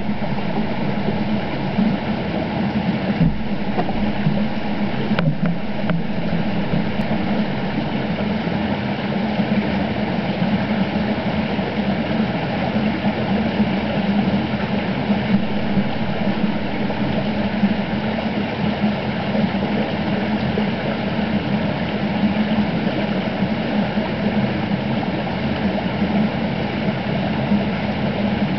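Flowing creek water heard underwater: a steady, muffled rushing rumble with no break.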